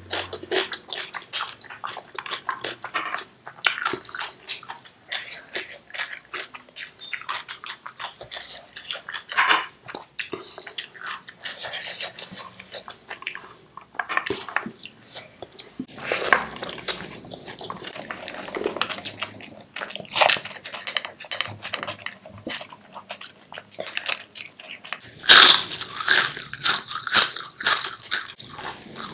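Close-miked eating sounds: fingers mixing and scooping rice and chickpeas on a plate, with scattered crunches, then a louder run of crunchy bites and chewing near the end.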